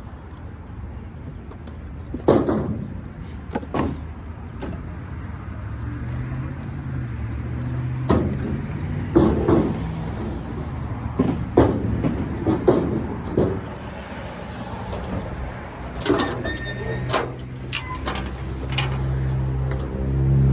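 Irregular wooden knocks and thuds as firewood bundles are set down and stacked, over a vehicle engine idling that grows louder near the end.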